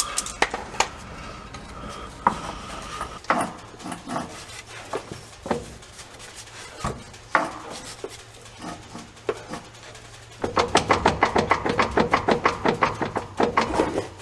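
Metal clinks and knocks from handling a pickup's driveshaft and its fittings, then a fast, even clatter of about ten knocks a second for the last few seconds.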